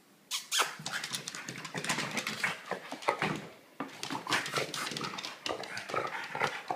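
French bulldog making a rapid, irregular run of short dog noises as it scampers on a hardwood floor, with a brief lull a little past halfway.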